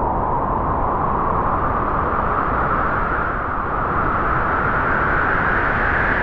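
Wind blowing in a long, strong gust: a steady rush of noise with a whistling tone that slowly rises in pitch.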